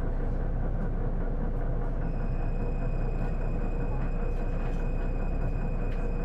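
Inside an Isuzu Erga city bus (PJ-LV234L1) under way: a steady engine and road rumble with a few light rattles. About two seconds in, a thin, high, steady whine comes in and holds. This is the abnormal noise the bus makes when accelerating, which the uploader likens to a PDG-LR's automatic gearbox and suspects is transmission-related.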